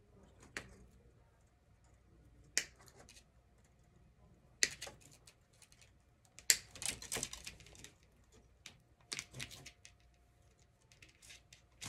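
Wire cutters snipping through chicken wire: sharp single metallic clicks every second or two, the loudest about halfway through, followed by a few quicker clicks.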